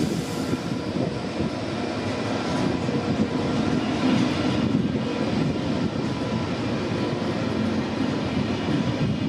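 TGV EuroDuplex high-speed trainset running in the station: a steady mechanical rumble with several held whining tones over it, and no sharp events.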